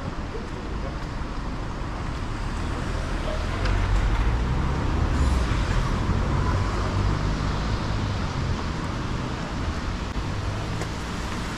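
Road traffic: a motor vehicle passes close by, its engine rumble swelling about four seconds in and fading over the next several seconds, over a steady hiss of street noise.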